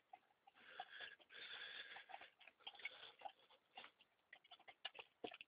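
A German Shepherd lapping from a plastic bucket: faint, irregular clicks and small splashes.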